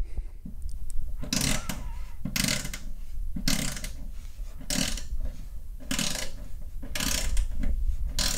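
Flexible-head ratchet wrench ratcheting in short strokes, a burst of clicks about once a second, as it backs out a fender bolt.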